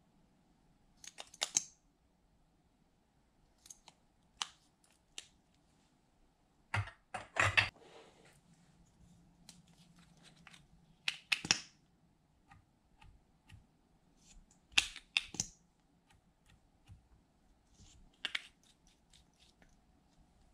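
Scattered clicks and light taps of plastic makeup tubes and caps being opened and handled, with brushes and applicators touching glass baking dishes. The clicks come singly or in short clusters every few seconds.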